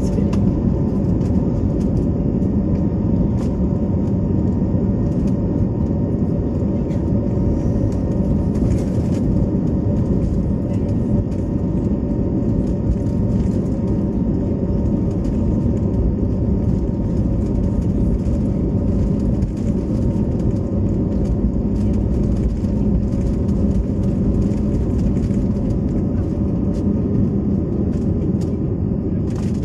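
Airbus A320neo's turbofan engines at takeoff thrust, heard from inside the cabin during the takeoff roll and lift-off: a loud, steady drone with a low rumble underneath.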